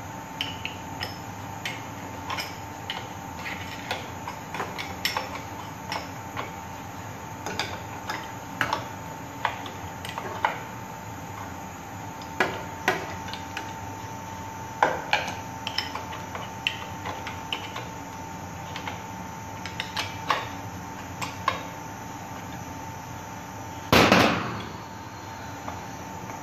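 Ratchet wrench and spanner clinking on the steel flange nuts and bolts of a pump pipe's rubber expansion joint as they are tightened: irregular sharp metallic clicks, a few a second, with one louder clatter near the end, over a steady hum.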